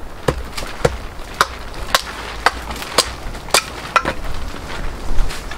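An axe chopping a thin stick of firewood on a wooden chopping block into kindling. It makes a series of quick, light wooden knocks, about two a second.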